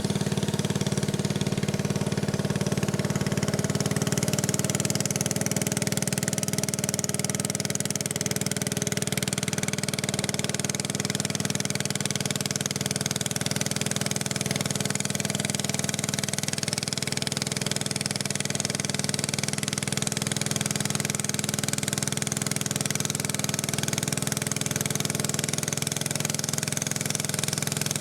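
Motorboat engine running steadily at an even speed, with a constant hiss above it.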